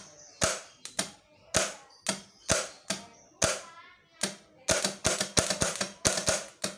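Peugeot 406 starter motor's solenoid clacking on the bench as a jumper cable from a battery is touched to its terminal again and again, throwing the pinion forward each time. It goes at about two sharp clacks a second, then a quicker run of snaps with sparking at the cable about five seconds in. The solenoid and pinion are working properly.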